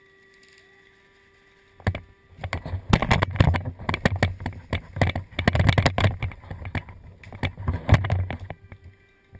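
Close rustling, scraping and knocking against the camera's microphone as its wearer shifts position by a tree, starting about two seconds in and stopping shortly before the end; loud, irregular and dense, with a heavy low rumble.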